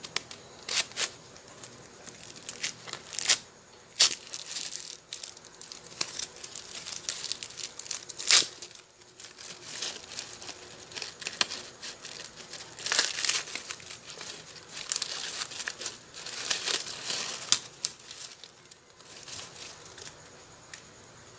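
Dry corn husks being torn and stripped off an ear of corn by hand, a knife helping to pry them loose: irregular crackling and rustling with sharp tearing sounds, the loudest about eight seconds in.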